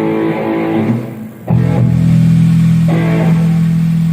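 Band sound check through the PA: electric guitar and bass play a short run of notes, then about a second and a half in a loud low chord is struck and left ringing, struck again near three seconds.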